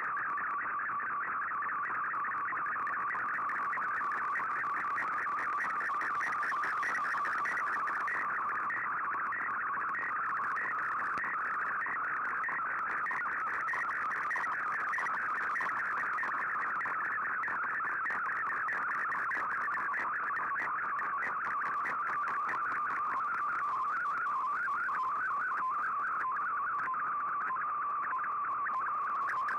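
Shortwave Radiogram digital-mode data signal heard through an Icom IC-R8600 receiver: a continuous, fast warble of shifting tones over faint radio hiss.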